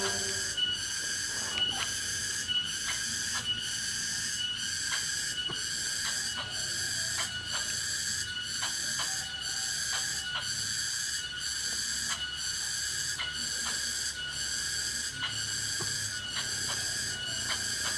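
Outdoor insect chorus: a steady high-pitched buzzing drone at several pitches that pulses a little over once a second, with scattered short clicks.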